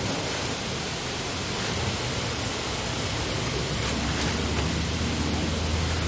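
Steady rushing noise, with a low engine hum coming up about halfway through and a plastic tarp rustling as it is pulled off a box.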